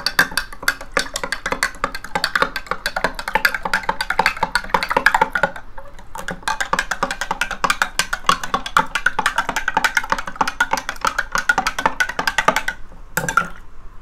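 Metal spoon stirring salt water in a drinking glass, clinking rapidly against the glass as the salt is dissolved. The clinking pauses briefly about halfway and again near the end.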